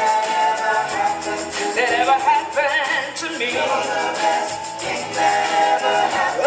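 Music performance: singing voices over band accompaniment with a steady beat.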